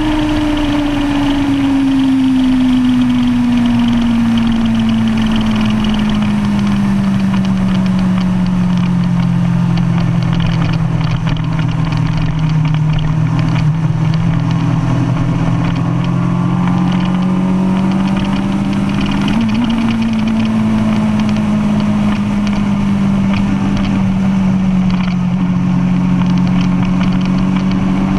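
2005 Kawasaki Ninja ZX-10R's inline-four with an aftermarket DanMoto racing exhaust, running at part throttle through a long corner. The revs fall slowly over the first ten seconds or so, hold steady, then pick up slightly about two-thirds of the way in and ease off again.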